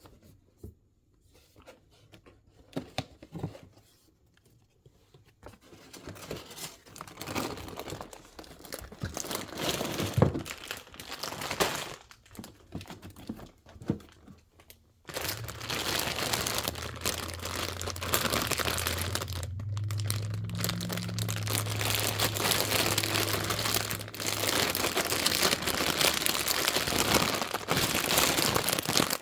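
Blind-box packaging being handled, crinkled and torn open by hand: scattered rustles and clicks at first, then continuous loud crinkling from about halfway.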